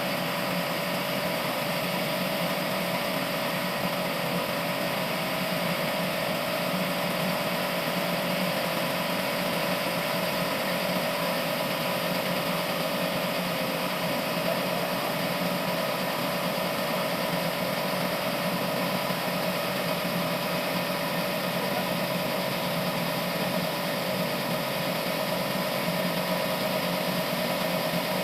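Sawmill machinery running steadily: an even motor hum with a constant whine that keeps the same pitch and level throughout.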